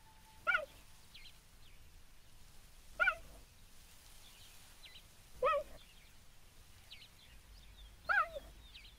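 Mother cheetah chirping to call her cubs: four short, bird-like chirps, about two and a half seconds apart.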